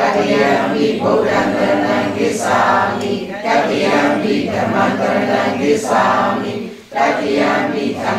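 A Buddhist congregation chanting together in unison, phrase by phrase, with short breaks about three and seven seconds in.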